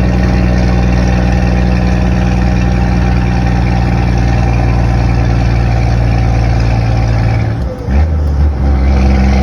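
Scania 124 truck's straight-six diesel running through a straight-piped exhaust with a loud, steady, deep rumble. About eight seconds in, the sound dips briefly and comes back at a different pitch before settling again.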